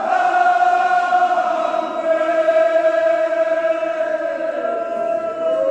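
A chorus of men chanting a Kashmiri marsiya, a Shia elegy, in unison, holding one long note that slides slowly a little lower.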